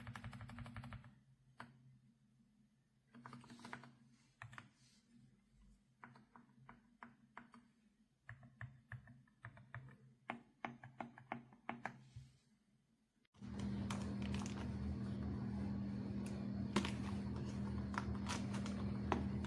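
Typing on a mechanical keyboard fitted with Akko V3 Penguin silent tactile switches: irregular runs of quick key clicks. About thirteen seconds in it cuts abruptly to a louder steady hum with scattered clicks.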